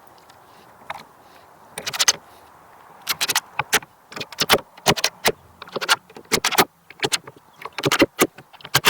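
Irregular clattering: sharp knocks and clicks in quick clusters, starting about two seconds in and running to the end.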